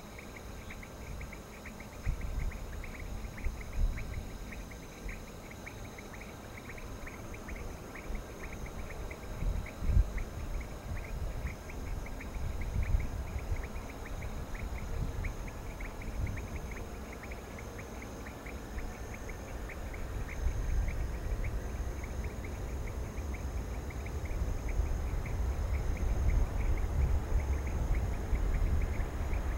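Low, distant rumble of the Antonov An-225's six turbofan engines, growing louder over the last ten seconds or so, under a steady night chorus of insects chirping rapidly and buzzing high.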